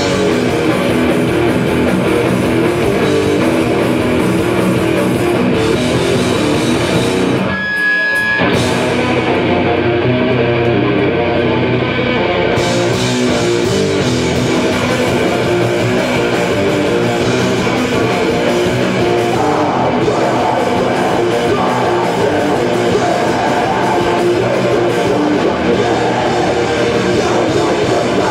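Live heavy metal band playing loud: distorted electric guitar, bass and drum kit, heard from within the crowd. The sound breaks off for a moment about eight seconds in, with a short ringing tone.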